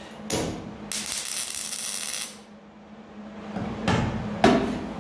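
MIG welder crackling through a plug weld on sheet-steel rocker panel: a short burst, then a steady crackle for about a second and a half, over the welder's low hum. Near the end come two sharp knocks.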